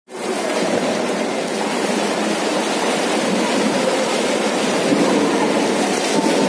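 Swimming-pool water splashing and sloshing against the pool edge as a swimmer swims past close by, a steady rush of water noise.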